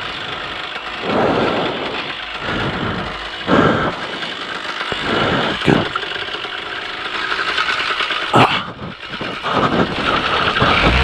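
Paramotor engine running at low power behind a steady rush of noise, broken by several short loud surges. Near the end a strong engine tone comes in as power is added.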